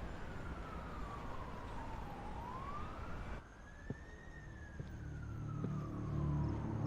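Emergency-vehicle siren in a slow wail, its pitch sliding down, back up and down again over several seconds. A low rumble swells in beneath it near the end.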